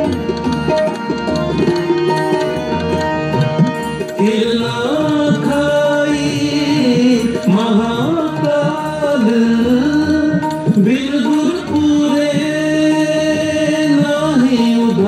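Indian music with tabla and singing. The sung melody comes in about four seconds in, with long held notes over steady instrumental tones.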